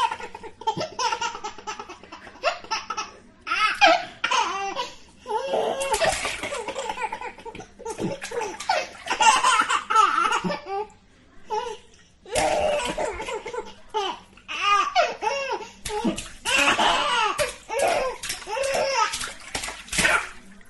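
A baby laughing in repeated bursts of short, high, gleeful squeals and giggles, with water splashing in a bath between and under the laughs.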